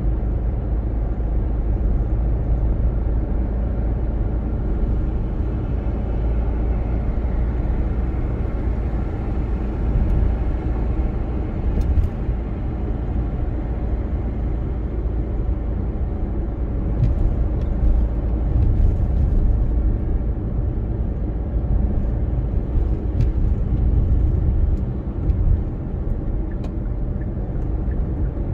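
Car driving along city streets: steady low road and engine rumble with tyre noise, and a few faint clicks.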